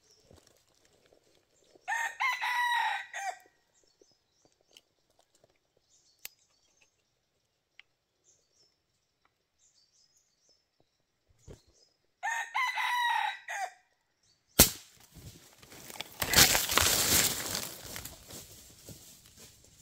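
A junglefowl rooster crows twice, about ten seconds apart. Near the end a sharp snap, the loudest sound here, is followed by a few seconds of loud flapping and rustling in the dry leaves.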